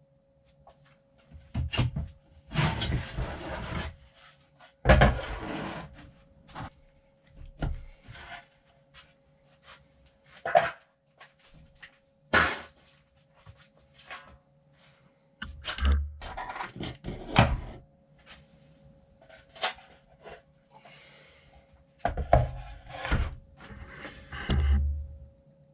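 Tools and metal parts of a disassembled suspension seatpost being handled: irregular clicks, knocks, a few stretches of scraping and some dull thuds while a rubber liner is worked loose from inside the post.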